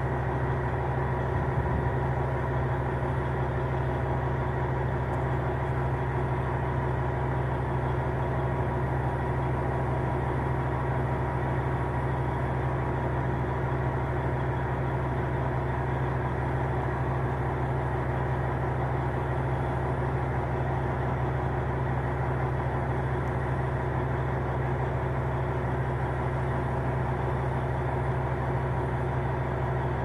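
Heavy truck engine idling steadily: a low, even drone that does not change.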